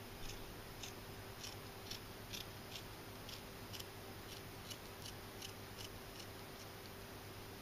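Kitchen shears snipping through the scaly skin of a tilefish along the fin line, a steady run of short snips about two a second that stops about six seconds in.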